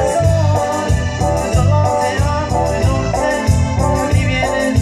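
Latin dance music played loud over a party sound system: a melody over a steady, pulsing bass beat with quick percussion ticks.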